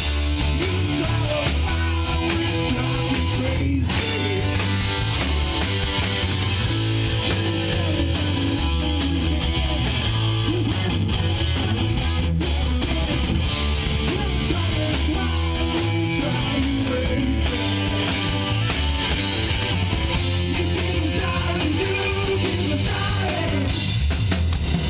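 Live rock band playing: electric guitar, bass and drum kit at a steady, even loudness.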